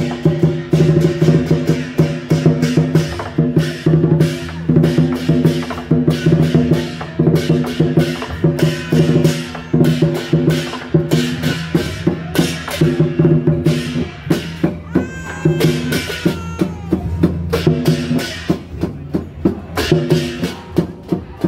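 Temple procession music: drums and cymbals beating a quick, steady rhythm with woodblock-like clacks, over a sustained melodic line. A brief gliding tone rises and bends about fifteen seconds in.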